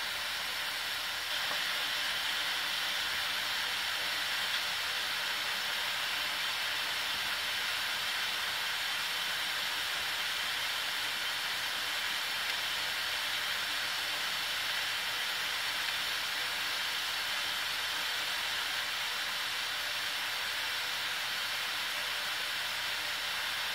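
Pressurised spray nozzle hissing steadily as it atomises liquid into a fine upward mist, getting a little louder about a second in.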